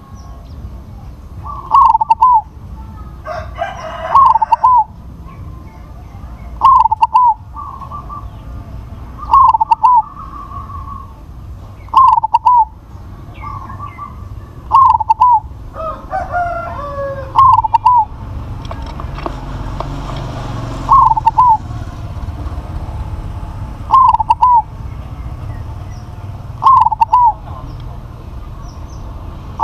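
Zebra dove (perkutut), a crossbred bird, singing its cooing song. Short, quick bursts of coos repeat about every two and a half to three seconds.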